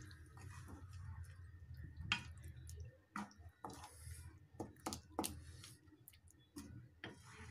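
Wooden spatula stirring thick curry gravy in a pan: soft squelching with irregular scrapes and taps against the pan, over a low steady hum.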